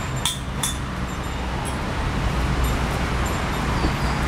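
A steady low engine rumble, with a few faint short high chirps or clinks above it.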